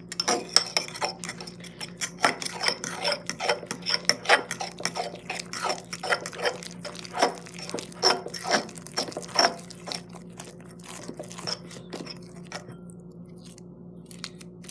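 A spoon clinking and scraping against a bowl in quick, irregular taps as thickening slime is stirred. The taps thin out to a few faint ones after about ten seconds.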